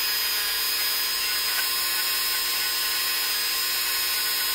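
Handheld rotary tool running steadily at high speed, its small bit polishing a steel part from a sewing machine's presser-bar assembly: a continuous even whine with no pauses.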